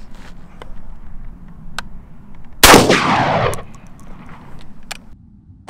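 A single shot from a Beretta A300 semi-automatic shotgun, about two and a half seconds in: one sharp report that echoes and fades over about a second.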